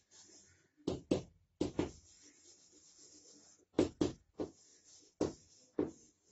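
Chalk writing on a chalkboard: a string of sharp taps and short scrapes as the letters are stroked, coming in uneven groups of two or three.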